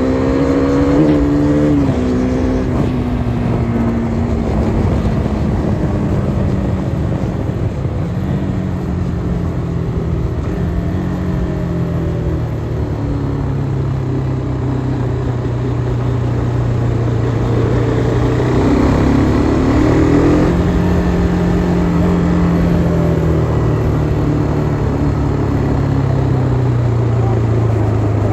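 KTM RC 390's single-cylinder four-stroke engine running under way. Its pitch falls near the start, then holds through long steady stretches, with a quick dip and rise about two-thirds of the way through.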